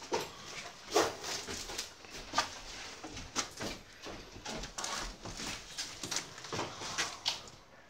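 Irregular footsteps and scuffs on a floor strewn with broken plaster and debris, a run of short crunches and clicks.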